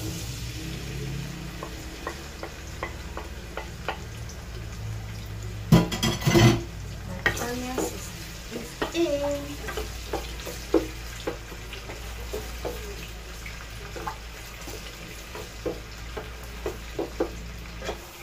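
Chopped onions sizzling in hot olive oil in a metal pot while a wooden spatula stirs them, with frequent short knocks and scrapes of the spatula against the pot. A cluster of louder knocks comes about six seconds in.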